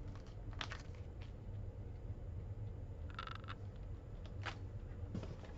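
A few short rustles and clicks of small parts and their packaging being handled, over a steady low hum.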